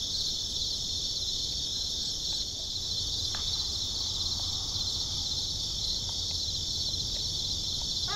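Steady, dense chorus of insects such as crickets: a continuous high-pitched trill with a fine pulsing texture.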